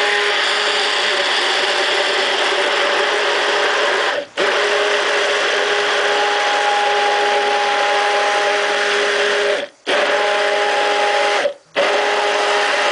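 Hand-held immersion blender running steadily in a tall beaker of milk and oil, whipping them into an emulsion (eggless milk mayonnaise). It stops for a moment three times and starts again at once.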